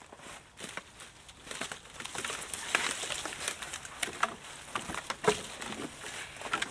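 Dry brush and dead twigs crackling and snapping as branches are handled and stepped through in the undergrowth: a dense run of small cracks that builds after the first couple of seconds, with the sharpest snap about five seconds in.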